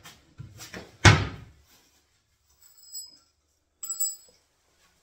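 A kitchen base-unit cabinet door swung shut, one loud knock about a second in, followed by a few faint clicks and taps.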